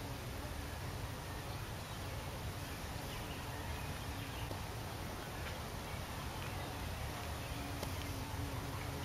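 Steady outdoor background noise, heaviest in a low rumble, with a couple of faint light clicks.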